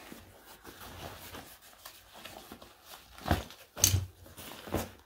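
Fabric tactical backpack being handled and turned over: faint rustling of the fabric, then three short bumps and rustles near the end, the middle one loudest.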